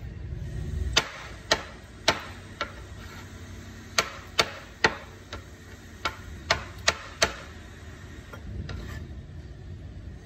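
Kitchen knife slicing button mushrooms on a plastic cutting board: about a dozen sharp taps of the blade striking the board, in short runs of two to four, ending about seven seconds in.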